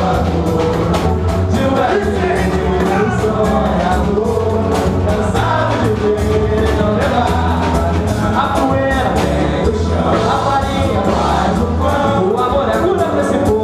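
Pagode samba band playing live, with sung vocals over bass and a steady percussion beat.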